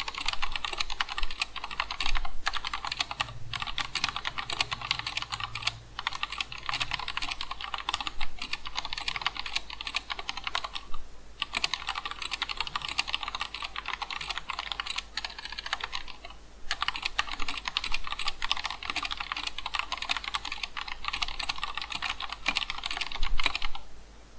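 Continuous fast typing on an Akko 3087 DS Horizon mechanical keyboard with Cherry MX Red linear switches: a dense clatter of key presses, broken by a few brief pauses, that stops just before the end.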